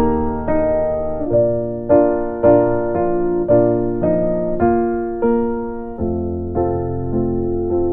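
Slow, soft piano music: single notes struck about twice a second, each ringing and fading, over held low bass notes.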